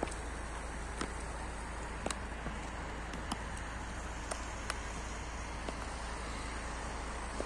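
Stiletto heels of high-heeled boots clicking on asphalt in slow walking steps, about one a second, over a steady outdoor hiss.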